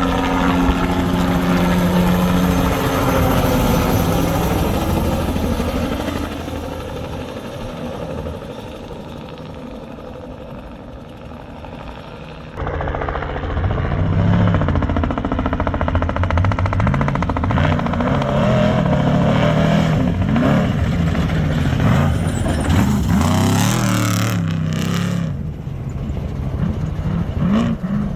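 Trophy truck race engines passing at speed: a loud engine note falls in pitch as one truck goes by and fades away. About halfway through the level jumps abruptly, and an engine revs up and down again and again, with a few sharp noisy bursts near the end.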